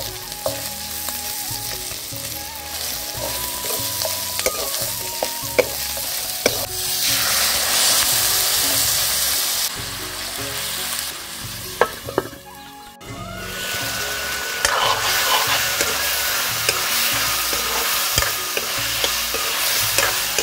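Chicken curry sizzling in a hot cast-iron kadai while a metal spatula stirs and scrapes it, with scattered scraping clicks. Water is poured in partway through, and the sizzle breaks off briefly a little after the middle before resuming.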